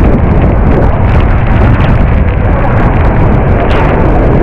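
Athirappilly Falls in monsoon flow: a loud, steady roar of falling water.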